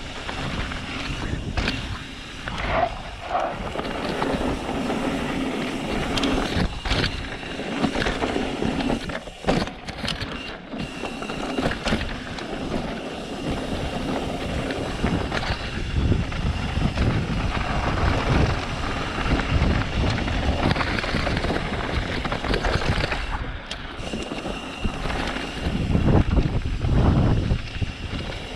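Mountain bike descending a dirt singletrack: tyres grinding over dirt and rock with the bike rattling and knocking over bumps, and wind rumbling on the microphone that grows heavier in stretches.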